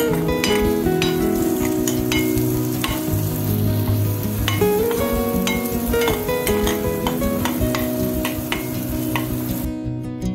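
Chopped onions sizzling in hot oil in a non-stick pan, with a steel spoon scraping and clicking against the pan as they are stirred. The sizzle cuts off near the end.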